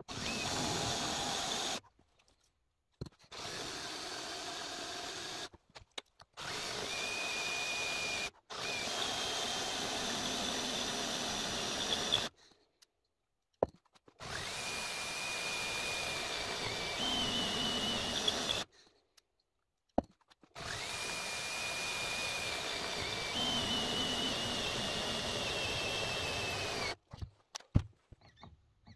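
Cordless drill boring into steel bar, run in about six spurts of a few seconds each, with a thin high squeal from the bit cutting metal that shifts in pitch as it bites. It stops about two seconds before the end.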